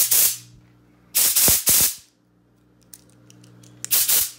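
Short hissing blasts of compressed air from a handheld air blow gun as its trigger is squeezed: one cutting off just at the start, a quick double blast a little over a second in, and another near the end.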